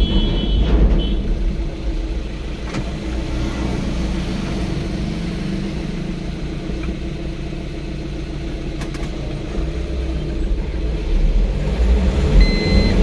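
Vehicle engine running and tyre noise on concrete, heard from inside the cab while driving slowly, getting a little louder near the end. A short high beep sounds near the end.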